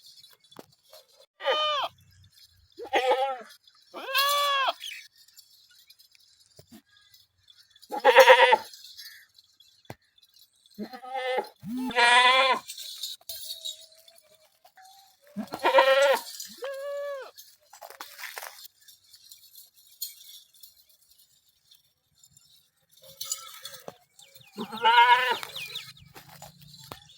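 Goats bleating, about nine separate calls of under a second each with quiet gaps between them; some calls waver in pitch.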